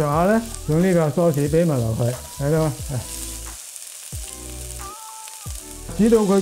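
Diced sweet peppers and aromatics sizzling in hot oil in a wok while a metal spatula stirs them. A warbling pitched melody plays over it, with a few held notes in the middle.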